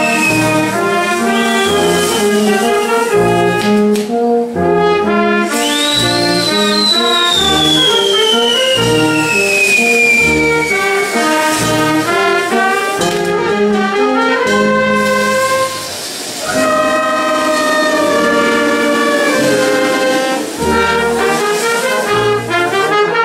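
Brass band playing a rhythmic tune, with trumpets and trombones. A high whistling tone glides slowly downward near the start and again from about six to eleven seconds in.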